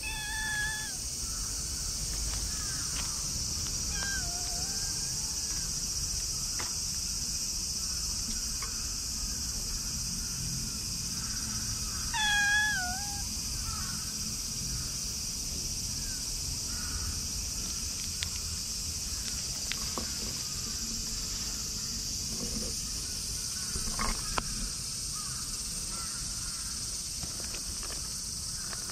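Tabby cat meowing a few times: a short meow at the start, a faint falling one about four seconds in, and a louder, wavering meow about twelve seconds in. Under it runs a steady high-pitched insect chirring.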